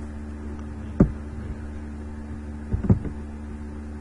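Steady low electrical hum, with two dull thumps, one about a second in and one near three seconds in.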